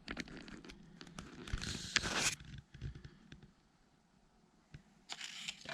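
Hand work at a bench: a run of light clicks and knocks, with a louder scraping, rustling stretch about two seconds in and a shorter one near the end.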